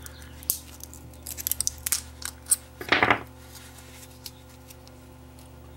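Small clicks and taps of circuit boards and metal tweezers being handled, scattered through the first half, over a steady low electrical hum. One short rushing sound comes about three seconds in.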